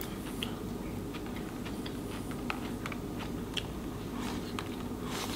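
A person chewing a mouthful of seaweed salad with raw vegetables, with faint, irregular crunches and small clicks over a steady low hum.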